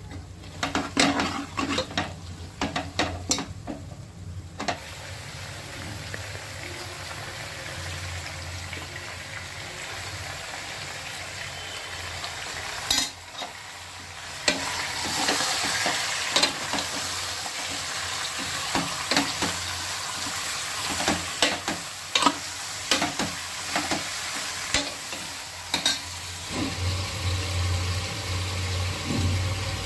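Onions, ginger-garlic paste and mint leaves frying and sizzling in oil in a pan, with a spoon stirring and clinking against the pan in clusters. The sizzle gets louder about halfway through.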